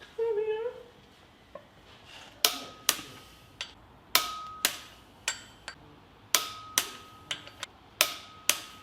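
Sharp metallic taps, mostly in pairs about half a second apart and repeating every second or so from a couple of seconds in, several followed by a short ringing tone: a metal tool striking metal. Before them, near the start, there is one brief pitched squeak.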